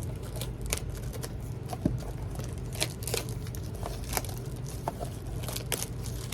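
Plastic wrapping on a trading-card box crinkling and tearing as it is handled, in scattered irregular crackles over a steady low hum.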